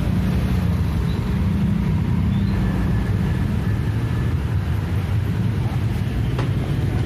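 Large truck's engine running low and steady as the truck creeps slowly along.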